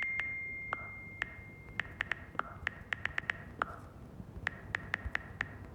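A single high ping-like tone that fades away over about two seconds, overlapped and followed by a quick, irregular run of sharp, slightly ringing ticks, several per second.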